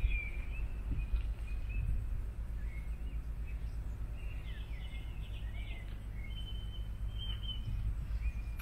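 Small birds calling in short chirps and quick sliding notes, with one held note about three-quarters of the way through, over a steady low rumble.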